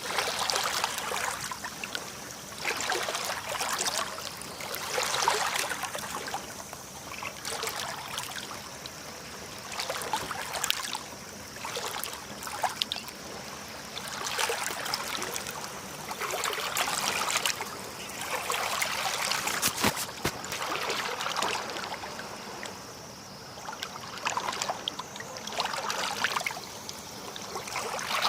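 Small sea waves lapping and washing at the shore, the water noise swelling and easing every two seconds or so, with fine crackling and a sharp click about twenty seconds in.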